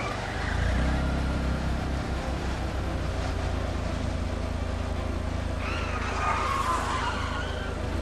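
Small car's engine running with a steady low hum that swells about a second in, then a tire squeal for a second or two around six seconds in as the car pulls up and stops.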